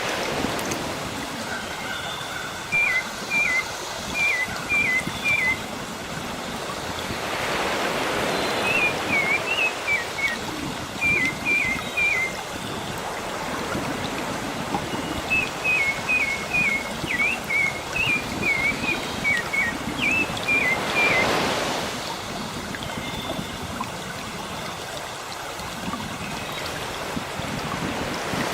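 Sea surf washing steadily, with waves swelling and breaking about a quarter of the way in, about three-quarters of the way in and again at the end. A songbird sings short, quick chirps in rapid runs over it.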